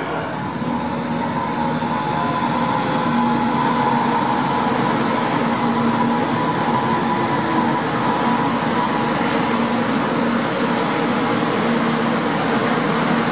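DB Class 423 S-Bahn electric multiple unit pulling into an underground station platform and passing close by. A steady rush of wheels on rail and air carries a high, even whine from the electric drive.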